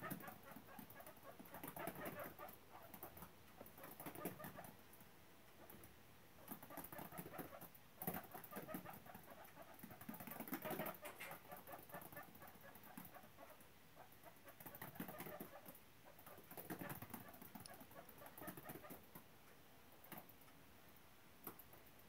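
Guinea pigs moving about a wooden hutch: faint bursts of quick clicks and scuffles every second or two.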